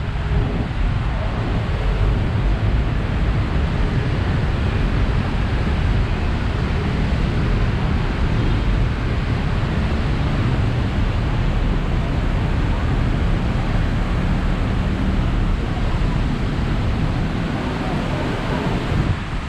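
Steady wash of city traffic on rain-soaked roads mixed with falling rain, a dense even hiss over a deep rumble.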